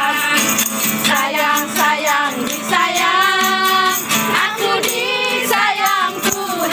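Women singing a lively Christian praise song together, accompanied by a strummed acoustic guitar over a steady percussive beat.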